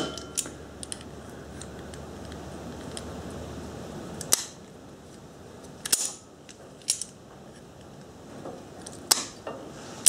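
Locking pliers (vice grips) being handled and set onto a metal cable-end fitting: a handful of short, sharp metallic clicks a second or two apart, over a faint low hum in the first few seconds.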